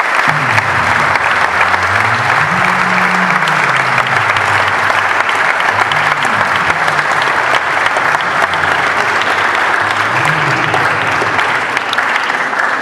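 Church congregation applauding steadily, with a low melodic line underneath; the applause dies down near the end.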